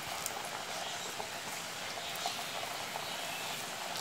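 Hot oil bubbling and crackling steadily around pepper vadas (milagu vadai, black urad dal fritters) deep-frying in an aluminium kadai, with a few small pops.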